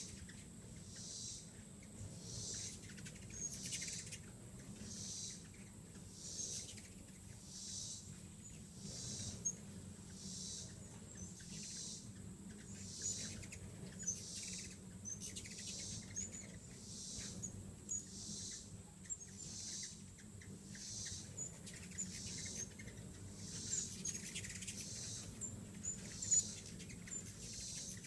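A pulsing insect chorus, a little over one pulse a second, with short high chirps from hummingbirds at the feeders scattered through it.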